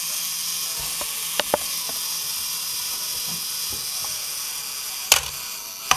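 A small motor whirring steadily with a high hiss, with two sharp clicks about one and a half seconds in and two more near the end.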